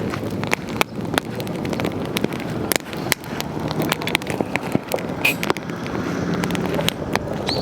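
Wood campfire burning, with irregular sharp crackles and pops over a steady low rush of flame.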